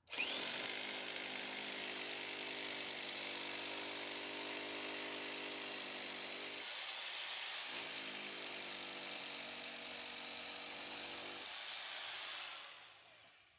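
Corded electric rotary hammer running steadily for about twelve seconds, with a hissing, hammering buzz. Its low hum drops out for about a second partway through, then the tool stops near the end.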